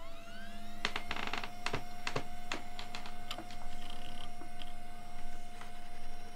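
A steady high electronic tone held over a lower hum. A quick run of sharp clicks and a short rustle come in the first couple of seconds.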